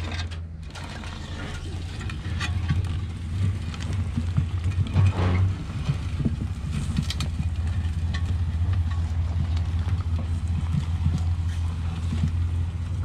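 Ford Explorer's engine running steadily, with a few short clunks around the middle.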